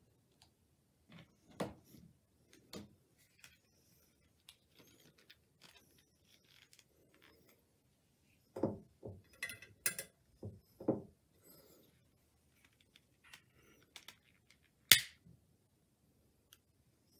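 Scattered small handling clicks and rustles, with a cluster of louder ones midway. About 15 seconds in comes one sharp click, the loudest sound: the push-button igniter of a long-neck butane utility lighter sparking it into flame.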